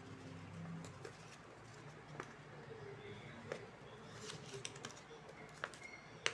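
Faint, scattered clicks and light rustling, about half a dozen small ticks over a few seconds, typical of paper being handled, folded and cut by hand.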